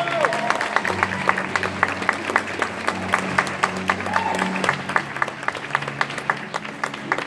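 Recorded waltz music ending on held chords that fade out, while a few onlookers clap.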